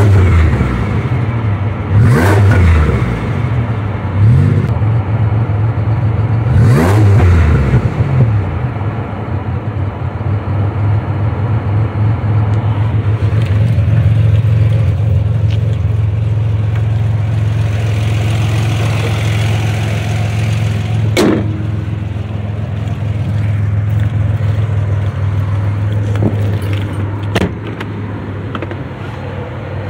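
Car engine and road noise heard from inside the cabin while driving. The pitch rises and falls a few times in the first eight seconds, then settles into a steady low cruising drone. A single sharp click comes about two-thirds of the way through.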